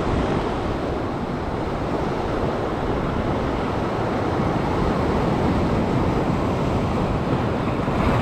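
Sea surf breaking and washing over a rock ledge in a steady rush, with wind buffeting the microphone.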